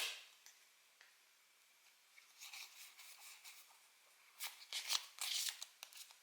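Pokémon trading cards and their packaging being handled: a sharp rustle at the start, faint soft rustling, then a louder run of short crinkling and sliding noises about four seconds in.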